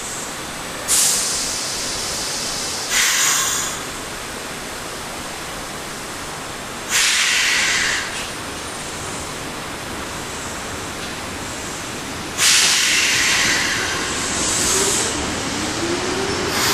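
Trains at a station platform, with four sudden bursts of compressed-air hiss of about a second each, typical of train air brakes releasing. A faint rising whine comes in near the end as a subway train pulls in alongside.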